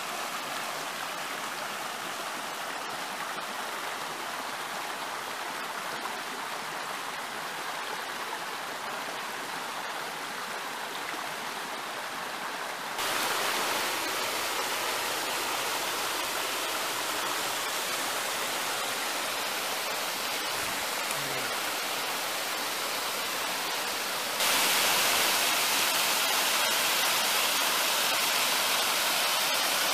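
Stream water rushing and splashing over rock ledges in small cascades. The rush jumps louder in two steps, about 13 and 24 seconds in, the last being a small waterfall pouring down a rock face.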